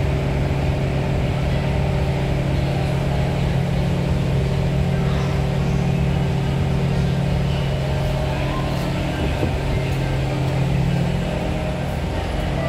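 Steady hum inside a Kawasaki Heavy Industries C151 MRT car standing at a platform with its doors open: the stationary train's air-conditioning and onboard equipment running.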